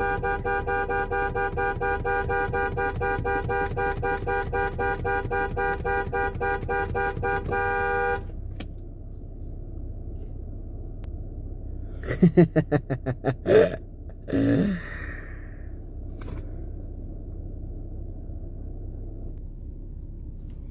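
Car horn of a 2021 Jeep Wrangler sounding in rapid pulses for about eight seconds, then a quicker run of short toots about twelve seconds in, to call a gate guard.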